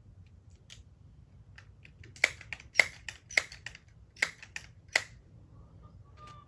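Sharp mechanical clicks and knocks from working a Crosman 1377 pellet pistol, about a dozen over three seconds with five louder ones roughly half a second to a second apart.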